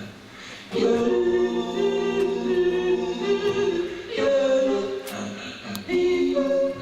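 Choral music: voices singing sustained chords in short phrases, each held for a second or more before the next begins.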